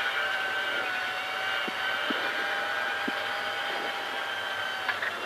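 Mitsubishi Lancer Evolution IX rally car's turbocharged four-cylinder engine pulling at a steady, held pitch, heard from inside the cabin while driving on a snow stage, with a few faint knocks in the middle.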